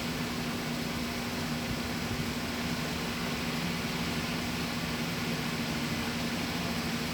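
Steady mechanical hum with a constant low tone over an even hiss, unchanging throughout.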